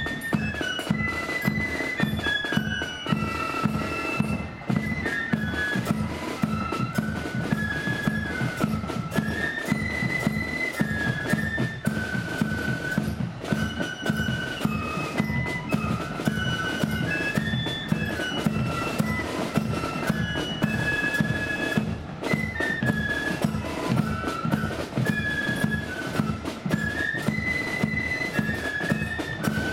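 Flute band playing a tune in unison on transverse flutes, with drums beating steady time underneath.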